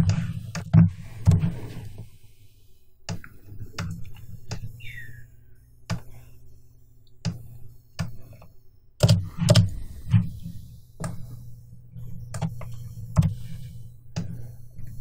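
Computer mouse clicks and keyboard keystrokes at irregular intervals, over a steady low hum. A short falling squeak comes about four and a half seconds in.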